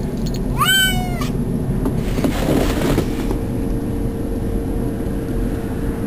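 Domestic cat meowing once, a single call rising then falling in pitch, about half a second in, at the door to be let back inside. A brief rustle follows around two and a half seconds in, then a steady low hum.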